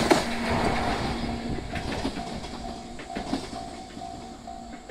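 JR 105-series electric train pulling away and fading, its wheels clacking a few times over rail joints as its low running hum dies out. Under it a level-crossing alarm rings in even, repeated electronic tones.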